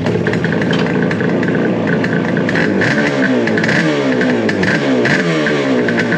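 1971 Suzuki T350's two-stroke twin engine starting up and running. From about three seconds in, the revs rise and fall over and over as the throttle is blipped.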